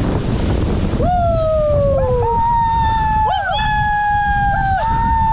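Steady heavy roar of falling water from a waterfall. From about a second in, several voices give long held whooping calls that overlap one another, the first sliding down in pitch and the later ones held level.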